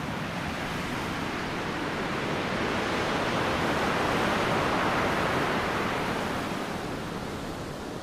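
Sea surf washing in over a rocky, stony shore: a steady rush of water that swells to a peak about midway and then eases off.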